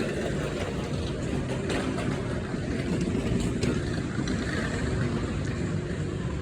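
Steady low rumble of downtown street ambience with traffic.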